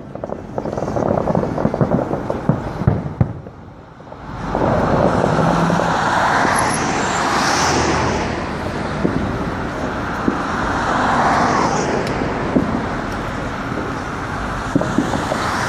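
Fireworks popping and crackling in the first few seconds. Then the steady rush of road traffic, cars passing close by and swelling twice, with a few faint pops near the end.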